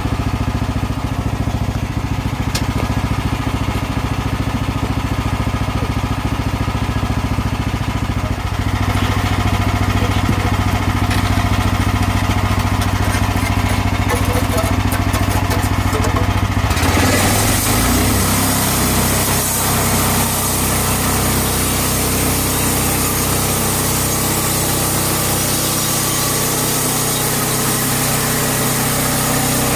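Gas engine of a portable bandsaw mill running steadily. About two-thirds of the way through the sound changes abruptly and a bright hiss joins the engine.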